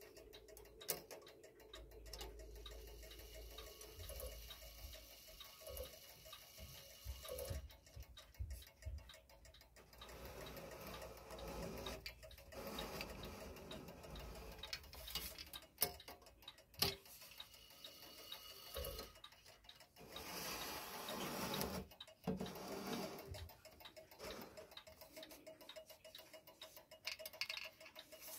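A 1915 Gustav Becker P42 clock movement, bare of its case, ticking as its escapement runs. Irregular rubbing and scraping from handling sounds over the ticking at times.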